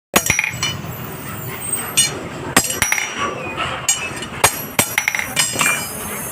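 Metal striking metal in a welding job on steel rods: irregular, sharp, ringing clinks and taps, about ten of them, like a hammer or tool knocking on the rod.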